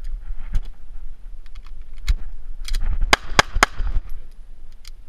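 A run of short, sharp clicks and knocks, with a cluster of louder ones about three seconds in, over a low steady rumble.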